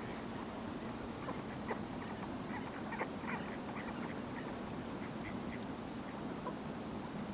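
Wild birds calling: a scatter of short, quick calls, thickest around the middle, over a steady low background rush.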